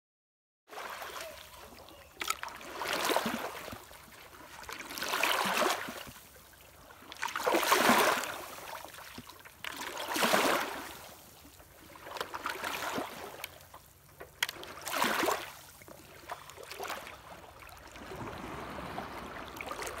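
Water sloshing and splashing around a paddleboard in the shallows, swelling and fading in a rhythm about every two and a half seconds. Near the end it turns into a steadier, softer wash of water.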